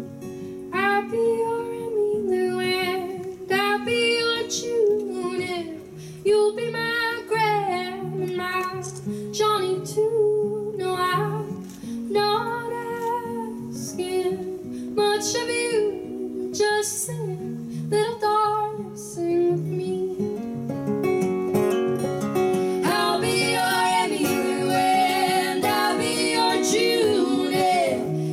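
Live acoustic folk song: an acoustic guitar strummed steadily under a woman's lead vocal. Near the end a second woman's voice joins in harmony and the sound grows fuller.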